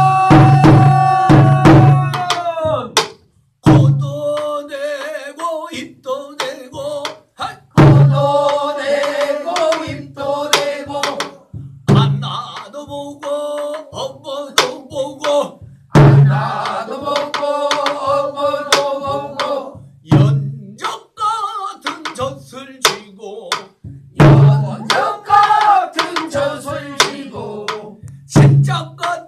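A man sings a slow Korean folk song in long, wavering held notes, accompanied on a Korean drum: a deep stroke about every four seconds, with sharp stick clicks in between.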